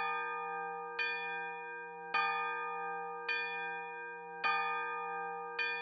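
A bell chime struck about once a second, the same ringing chord each time, every strike sounding on until the next.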